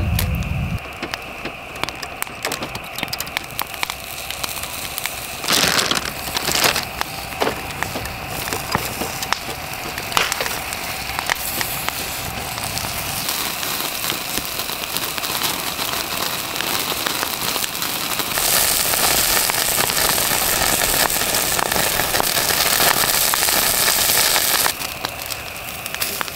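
Wood fire blazing in a slit-log (Swedish torch) stove, crackling with occasional sharp pops over a steady hiss, with meat grilling on the grate above the flames. The hiss grows louder for several seconds in the latter part, then drops suddenly near the end.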